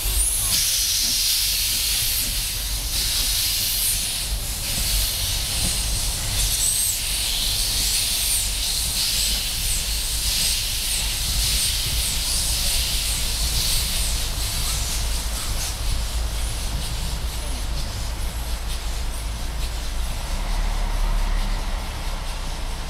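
Narrow-gauge Double Fairlie steam locomotive hissing steam from its open cylinder drain cocks as it pulls away. The hiss fades over the second half as the engine draws off.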